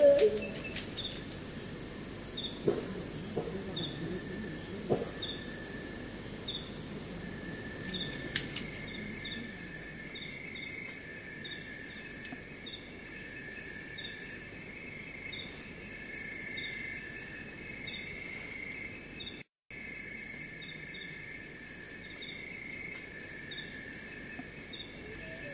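Field recording of insects chirping: a steady high-pitched trill with a short chirp repeating every half second or so, and a few faint lower sounds in the first few seconds. The recording drops out for a split second about three-quarters of the way through.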